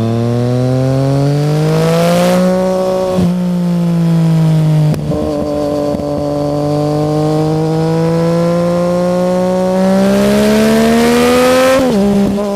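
Yamaha MT-09 inline three-cylinder engine with an Arrow exhaust pulling under way, its pitch climbing steadily and dropping at each gear change, about three times.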